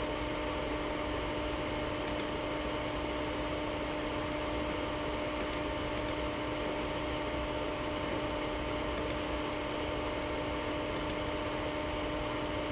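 Steady hiss with a low, even hum from a VHF radio receiver between voice transmissions, with a few faint ticks.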